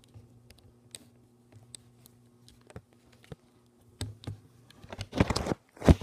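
Handling noise from a phone camera held in the hand: light taps and clicks of fingers on the phone over a low steady hum, then louder rubbing and rustling from about four seconds in as it is moved and re-aimed.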